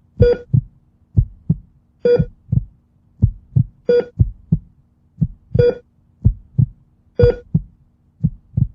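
Heartbeat sound effect: low lub-dub thumps about once a second, with a short electronic heart-monitor beep about every 1.7 s, five beeps in all.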